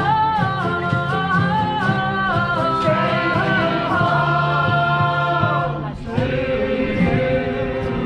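Sea shanty group singing in several-voice harmony with acoustic guitars, played live. The voices hold a long chord that breaks off about six seconds in, then the singing and playing carry on.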